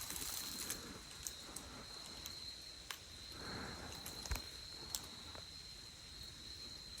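Footsteps pushing through dry woodland brush: scattered sharp twig snaps and a soft rustle of leaves, over a steady high-pitched tone.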